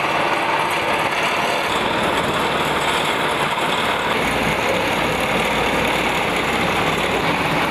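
Engines of road-repair machinery, a dump truck and a road roller, running steadily at the work site, with a deeper engine rumble joining about four seconds in.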